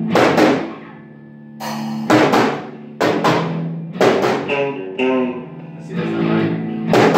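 Drum kit and electric bass playing a rock song together: repeated loud cymbal crashes with drum hits, each left ringing, over held low bass notes.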